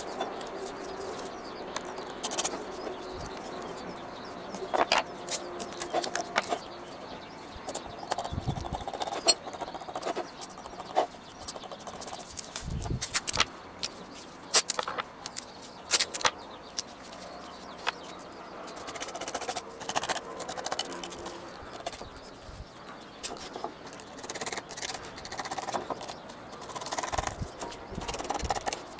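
Masking tape being pressed down and trimmed with a craft knife: scattered small clicks and crinkles, irregular and close. Birds call in the background throughout.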